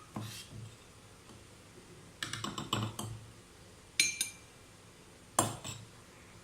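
Metal utensil clinking against cookware: a few light clicks, a quick cluster of knocks about two to three seconds in, then two sharper clinks about four and five and a half seconds in, the first ringing briefly.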